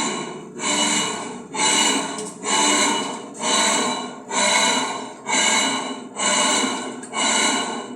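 Electrolux LT10B top-loading washing machine agitating a wash: a loud surge of motor whine and churning about once a second as the agitator swings back and forth. The motor is noisy because a wrong, non-original motor was fitted.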